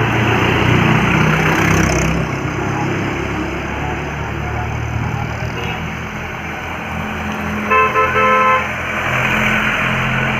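Steady rumble of a running road vehicle, with a vehicle horn honking twice in quick succession near the end.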